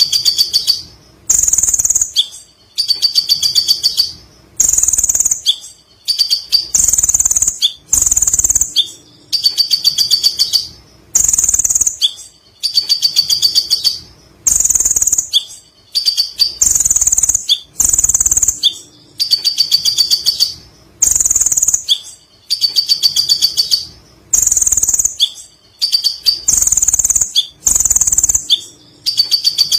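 Kolibri ninja sunbird singing a long, rapid, high-pitched chattering song ('ngekek panjang'), in loud phrases that repeat at an even pace about every two seconds with short gaps between them.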